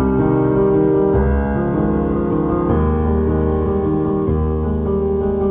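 Instrumental background music, held chords shifting every second or so.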